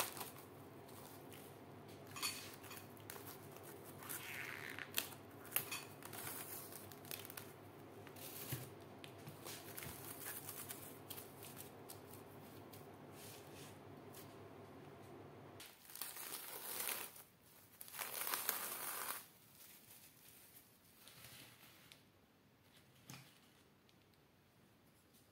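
Plastic cling film pulled off its roll, torn and pressed over a glass bowl: crinkling and rustling with many sharp clicks, loudest in two bursts about two-thirds of the way through. A low steady hum runs underneath and stops just before those bursts.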